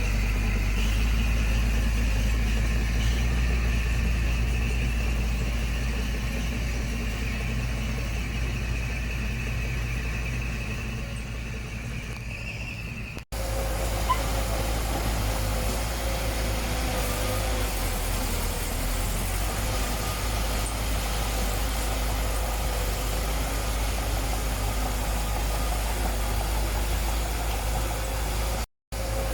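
Heavy construction machine's diesel engine running steadily. The sound cuts out completely for a moment about 13 seconds in and again near the end.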